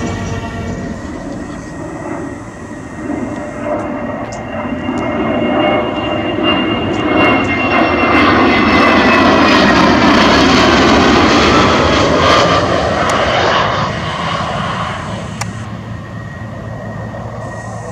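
F-16 fighter jet flying past: jet engine noise builds to a peak about eight to twelve seconds in, with a high whine that falls in pitch as the jet passes, then fades.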